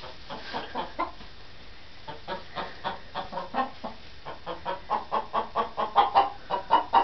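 Chickens clucking: a run of short calls, a few a second, growing louder and more frequent from about halfway through.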